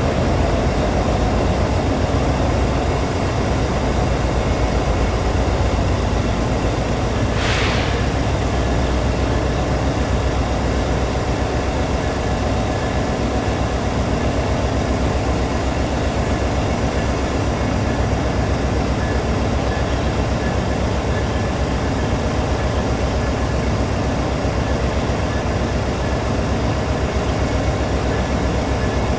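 Commuter train locomotive running steadily, a deep rumble with faint steady whining tones above it. A short hiss comes about seven seconds in.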